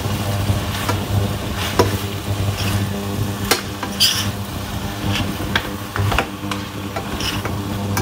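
A spatula stirring and tossing seafood in a stainless steel frying pan while the food sizzles. Sharp scrapes and clicks of the spatula against the pan come every second or so, over a steady low hum.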